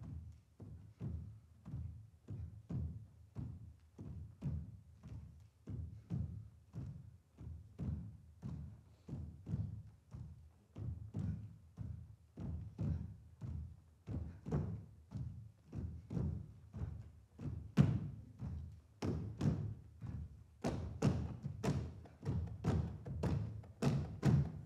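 Percussive dance music: a steady low drum beat about twice a second, joined in the last few seconds by sharper, brighter hits.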